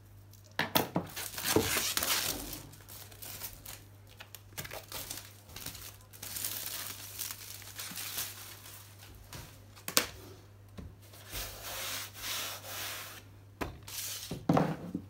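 Clear plastic wrap being cut, torn and crinkled as it is pulled off a stretched canvas, in several bursts of rustling with a few sharp clicks and a soft knock near the end.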